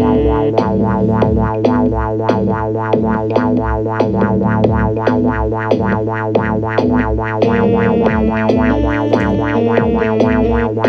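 Instrumental music: a steady pulse of repeated notes over a held bass tone, with a melody that shifts in pitch.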